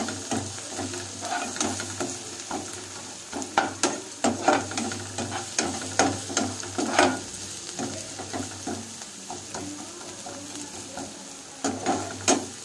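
Sliced onions sizzling in hot oil in a non-stick kadai while a wooden spatula stirs them, scraping and knocking against the pan in irregular strokes over a steady frying hiss.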